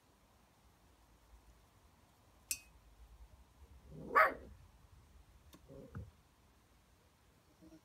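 Puppy barking: one sharp bark about halfway through, then a softer, lower one about two seconds later.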